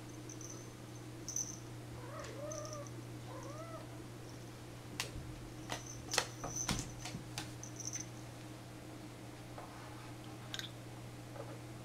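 A cat meowing twice, two short calls that rise and fall about two and three seconds in. These are followed by a run of sharp clicks and taps, over a steady low hum.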